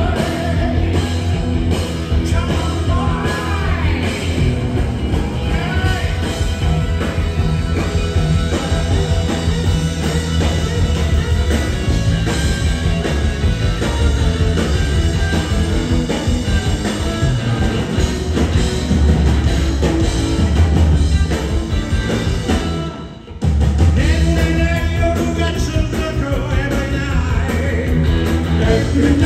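A live rock band playing: electric guitars and drums, with a singing voice over them. The sound drops briefly about 23 seconds in, then resumes.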